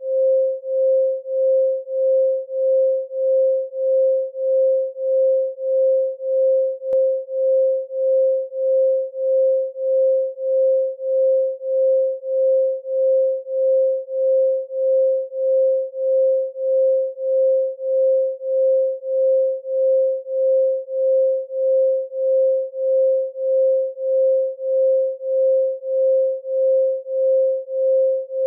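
A pure 528 Hz sine tone, the solfeggio frequency, sounding continuously and swelling and fading evenly about one and a half times a second.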